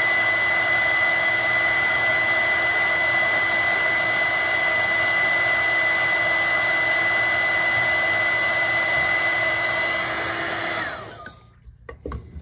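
Heat gun blowing hot air to melt the solder in a heat-shrink solder-seal wire connector: a steady rush of air with a high, even whine. About eleven seconds in it is switched off and winds down, its whine falling, followed by a few light clicks.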